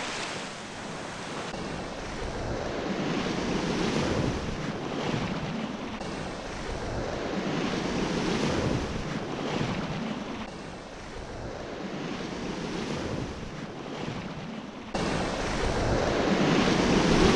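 Small waves washing in over sand in shallow water, swelling and ebbing every few seconds, with wind buffeting the microphone. The sound steps up suddenly in loudness near the end.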